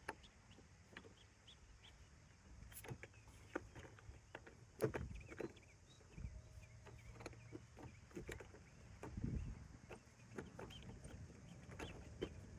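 Faint, scattered clicks and light knocks from handling a paintless dent repair puller kit being set up, the firmest knocks about five and nine seconds in.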